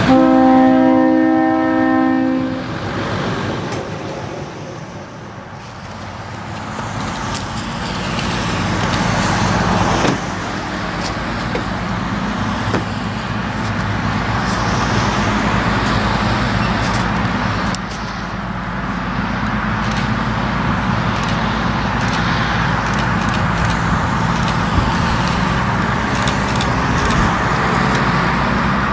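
GE 80-ton centercab diesel locomotive sounding its horn once for about two seconds, then its diesel engines running steadily as it moves along the track.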